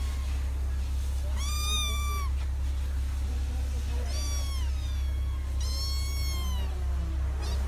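A kitten meowing three times, short high-pitched meows starting about one and a half, four and six seconds in, over a steady low hum.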